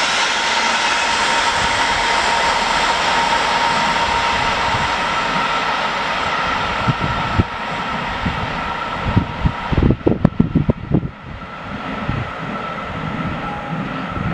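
Intermodal freight train of semi-trailers on pocket wagons rolling past and away on the rails, a steady rumble with a faint high whine that slowly fades as the train recedes. Low thumps of wind on the microphone about ten seconds in.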